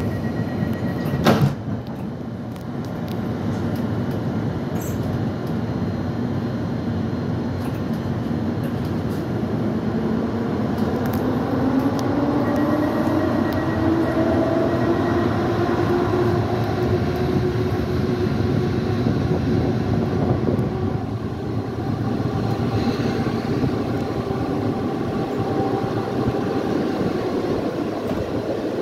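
Intercity passenger train pulling out of a station, heard from a carriage window: a steady rumble of wheels on rails, with a whine that slowly rises in pitch as the train gathers speed. A single sharp clunk about a second in.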